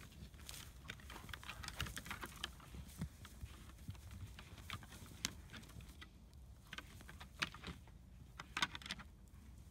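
Two mule deer bucks fighting in the rut with antlers locked: irregular clicks and clacks of antler on antler, with hooves scuffling through dry grass and brush.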